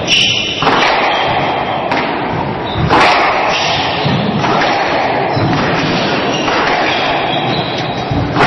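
Squash ball being struck by rackets and thudding off the court walls during a rally, with a few sharp impacts that echo in the enclosed court.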